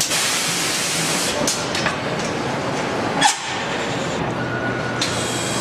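Car assembly-line din: steady factory machinery noise with scattered metallic clicks and clanks, the loudest clank about three seconds in.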